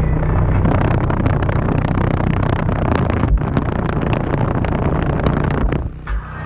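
Kicker Comp 15-inch subwoofer playing loud bass in a car: a steady low drone with a dense, noisy buzz over it that drops off near the end.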